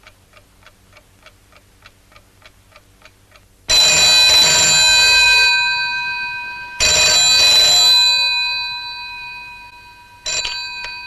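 A clock ticks about three times a second. Then a telephone's bell rings loudly twice, each ring fading away, and a short third ring comes near the end.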